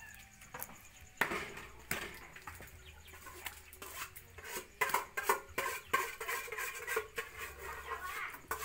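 Meat cleaver chopping raw duck meat on a round wooden chopping block: a dozen or so sharp, irregular chops, about one to two a second.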